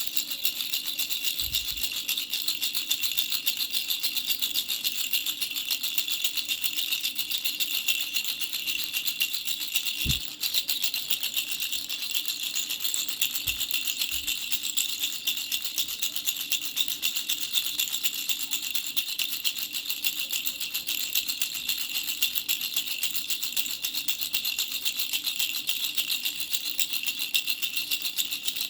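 A baby rattle with three small bells shaken quickly and continuously, the bells jingling with a bright, high ring. A brief break comes about ten seconds in, along with a few soft handling bumps.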